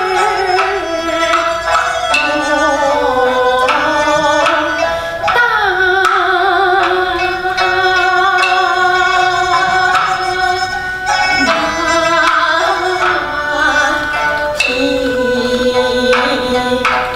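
Kunqu opera music: a melody of held notes with a wavering vibrato over several instrumental lines, punctuated now and then by sharp percussion strikes.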